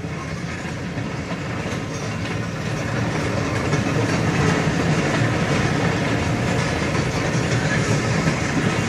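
Freight train of railroad tank cars rolling past, steel wheels running steadily on the rails; the sound grows a little louder about three seconds in.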